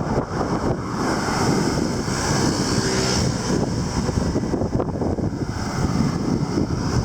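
Wind buffeting the microphone on a moving bicycle: a steady, fluttering rumble, with a brighter hiss swelling for a second or so in the middle.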